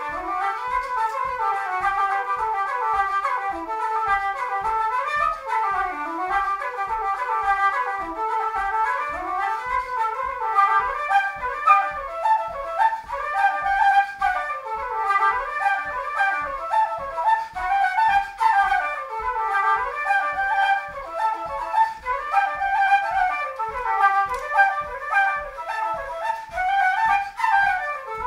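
Two flutes playing a quick Irish traditional dance tune together as one continuous melody line.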